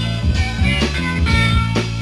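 Blues-rock band playing an instrumental stretch with no singing: electric guitar over bass and drums.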